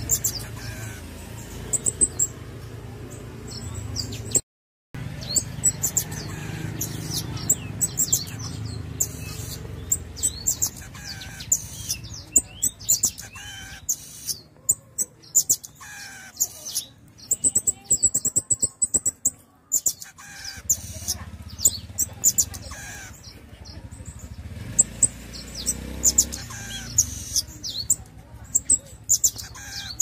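Pin-tailed parrotfinch (Erythrura prasina) song: very high, thin chirps and short twittering phrases, coming in repeated bursts.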